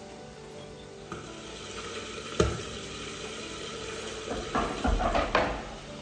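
Wooden cutting boards being set down and shifted on a kitchen countertop: one sharp knock about two and a half seconds in, then a quick run of knocks and scrapes near the end.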